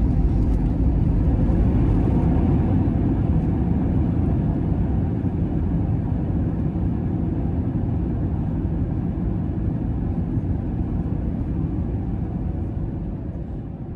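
Airbus A321neo cabin noise heard from a passenger seat: a loud, steady low rumble of engines and airflow that slowly dies away near the end.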